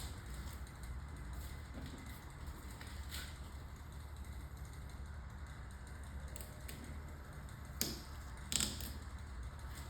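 A blade trims a vinyl stripe along a car's quarter-panel edge, making faint scattered light clicks and ticks over a low steady hum. A few sharper clicks come about three seconds in and twice near the end.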